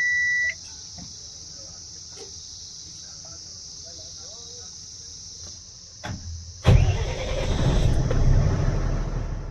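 A steady high warning beep from the truck's dashboard stops about half a second in; after a few seconds of quiet, the truck's diesel engine is cranked and starts about two-thirds of the way through, then runs loudly, easing a little near the end.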